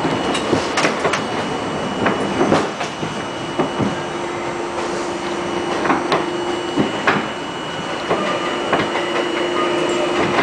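Ride inside a moving R42 subway car: a loud, constant rumble with irregular clacks of the wheels over rail joints, and a steady hum that comes in partway through.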